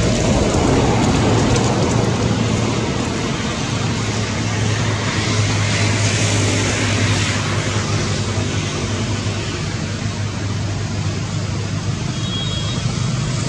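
Steady traffic noise: a low motor hum with a hiss over it.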